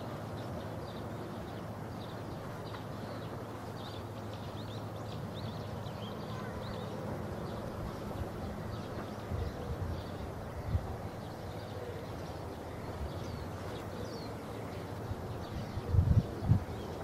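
Outdoor ambience with faint, scattered chirping of small birds. Low rumbling bumps on the microphone come about ten seconds in and again, loudest, near the end.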